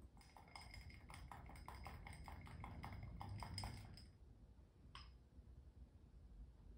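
Faint, quick clinking of a spoon against a small glass bowl while stirring, about five light clinks a second for some four seconds, then one more tap about a second later.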